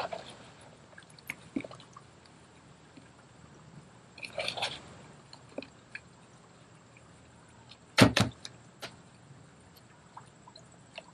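Fingers pressing and working loose potting soil into a small plastic nursery pot: a soft rustling scrape about four seconds in and a few faint ticks. A single sharp knock about eight seconds in is the loudest sound.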